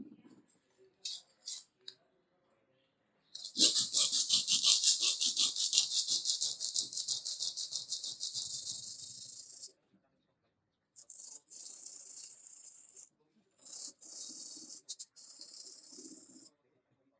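Fast back-and-forth hand scrubbing with an abrasive, a harsh scratchy scraping of many quick strokes, from rust and paint being worked off a saw. One long loud bout runs about six seconds, then after a short pause come a few shorter bouts.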